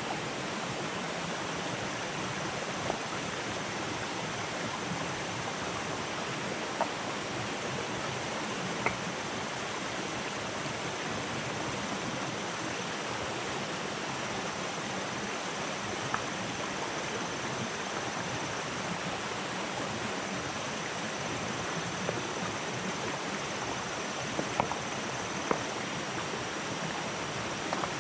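Small forest stream running steadily over rocks, with occasional sharp knocks of stones being set onto a stacked stone wall, a few more of them near the end.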